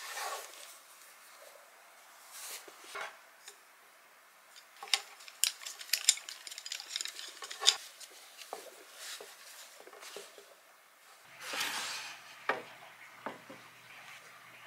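Cloth rustling and a cluster of sharp clicks and taps as a lunch box wrapped in a cloth is handled and its knot tied. About three-quarters of the way through, a wooden drawer slides open with a smooth rush, followed by a few light clicks.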